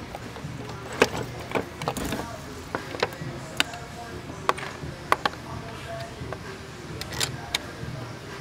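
A hard plastic battery tray being set into place in a car's engine bay by hand: a string of irregular sharp clicks and knocks of plastic and metal, about a dozen in all, over a steady low background hum.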